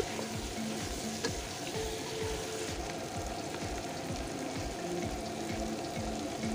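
Beef frying and sizzling in a non-stick pot, stirred with a wooden spatula, with small crackles and clicks throughout.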